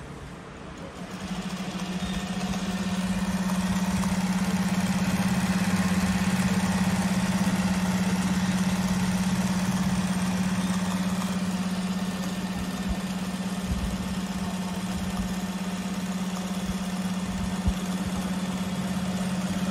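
JAGKING JK-5330D direct-drive industrial sewing machine running at a steady speed, stitching a zipper onto a leather strip. It is a steady even hum that starts about a second in and stops suddenly at the end.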